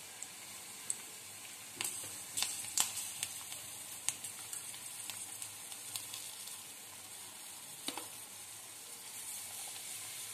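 Batter-coated green chillies deep-frying in hot oil: a steady sizzle with scattered sharp crackles, busiest about two to three seconds in.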